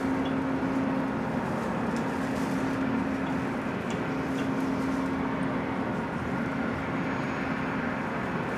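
A steady machine hum with a rushing noise and a low constant tone beneath it, with a few faint ticks over it.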